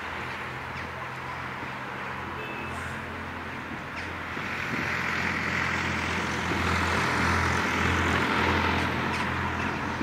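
A motor vehicle passing: a steady rumble and hiss that swells from about halfway through and eases near the end.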